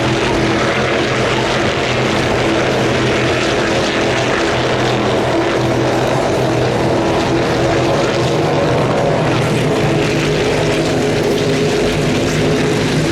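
Stock Car racing cars' engines running at speed around the circuit, a loud, steady, multi-toned drone with no clear rise or fall.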